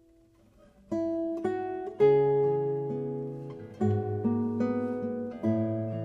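Background music on a plucked string instrument, guitar-like: notes and chords struck about a second in and then every second or two, each ringing on, after a quiet opening moment.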